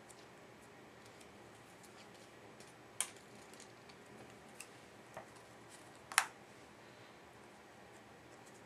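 A few sharp clicks and light taps of small craft scissors and cut paper being handled on a table, the loudest about six seconds in, over faint room hiss.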